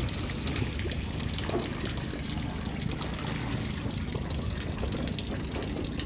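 Water trickling and splashing, with many small scattered splashes, over a steady low rumble.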